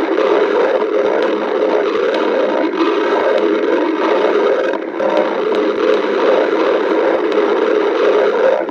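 A hungry stomach growling: a loud, continuous low rumble with a slight dip about five seconds in.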